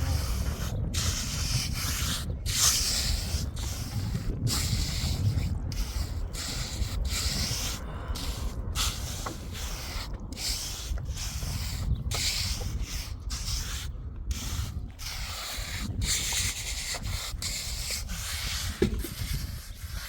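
A hand tool scraping across wet concrete in repeated rough strokes, roughly one a second and unevenly spaced.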